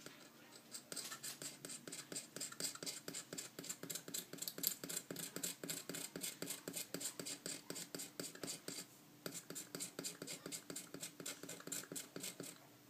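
Aven Tools precision hobby knife scraping solder mask off a printed circuit board in short rapid strokes, about four a second, with a brief pause about nine seconds in.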